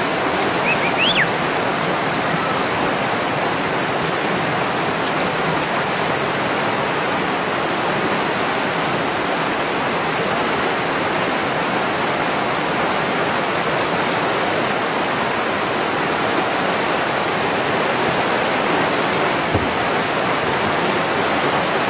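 Rapids of an artificial whitewater slalom course rushing steadily, a continuous even roar of churning water.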